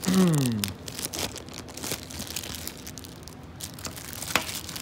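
Clear plastic wrapping around a heater remote control crinkling as it is handled and pulled at, with scattered crackles and a sharp click near the end. At the start a man's brief groan falls in pitch.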